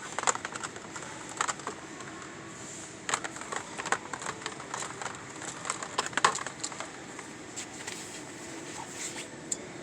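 Diecast car packages being handled and shuffled on store pegs: clusters of plastic clicks and crinkles, several bursts a few seconds apart over a steady store hum.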